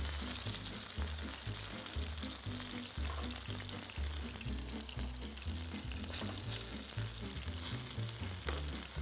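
Flour-dusted white eel pieces frying in hot oil in a skillet, a steady sizzle, over background music with a steady low beat.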